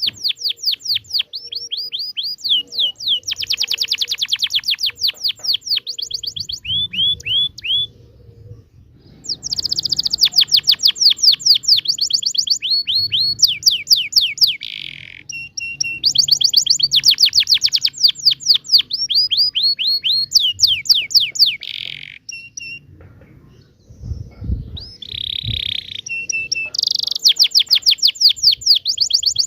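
Domestic canary singing long phrases of rapid, repeated down-slurred notes run together into rolling trills, with brief pauses about eight seconds in and again near twenty-three seconds.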